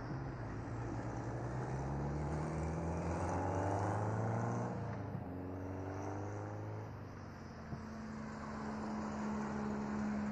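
Cars driving past on a highway: one engine note climbs in pitch over the first four seconds or so, a second engine note follows, and a steady low hum holds from about seven seconds in.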